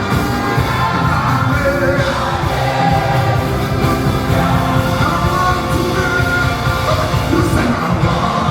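Live gospel worship music: a band playing with a steady beat under singing, with some shouting from the congregation.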